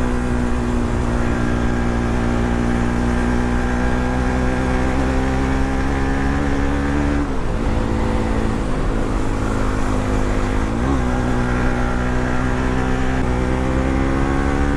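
Bajaj Pulsar NS200's single-cylinder engine running. Its pitch climbs slowly, drops sharply about seven seconds in, then climbs again with a brief blip near eleven seconds.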